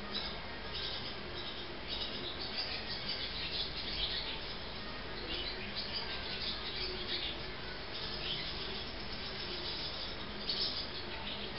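Barn swallows twittering: clusters of short, high chirps that come again and again.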